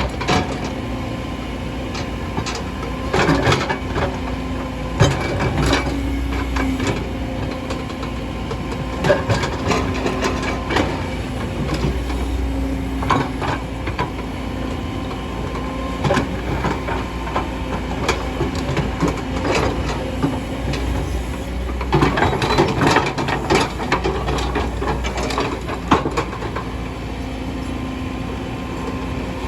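Kobelco hydraulic excavator's diesel engine running steadily under load, with repeated knocks, clanks and scraping of the bucket working rock and earth. The clatter is busiest about three-quarters of the way through.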